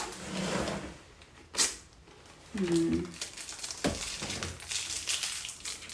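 Handling noises: rustling, with a sharp click about one and a half seconds in and a dull thump about four seconds in, and a short voiced murmur between them.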